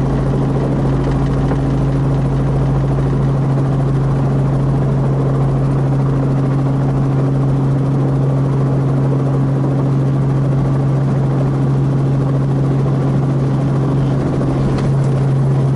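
Robinson R44 helicopter heard from inside the cabin while hover-taxiing: a steady, loud hum of rotor and engine with a constant low drone that does not change.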